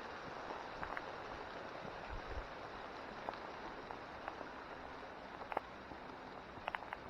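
Steady rush of running water, with scattered light clicks and a few soft low thumps.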